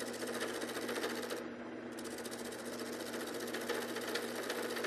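Wood lathe running with a steady motor hum while a hand-held turning tool cuts a spinning poplar blank, a continuous rasping scrape as shavings come off. The cutting breaks off briefly about a second and a half in, leaving only the motor hum, then resumes.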